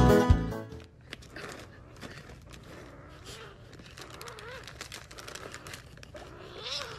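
Piano music cuts off within the first second. Then faint crinkling and rustling handling noises, with soft voices murmuring.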